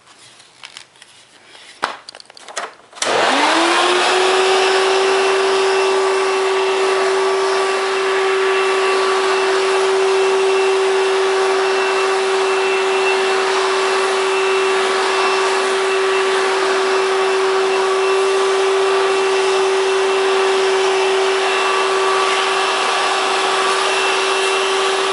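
A few faint clicks, then about three seconds in the Hoover Power Drive U6311-930 upright vacuum's 7.8-amp direct-air motor switches on. It winds up within about a second to a steady high whine over a loud rush of air and runs steadily, pretty noisy, in hose and tool mode.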